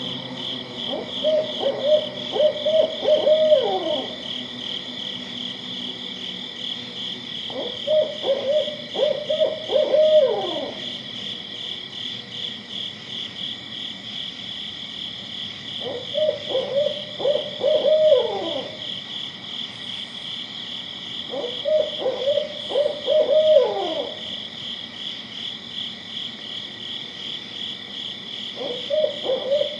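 An owl hooting: five bouts of several quick hoots, each ending in a falling note, coming about every six seconds. A steady, high, pulsing drone runs underneath throughout.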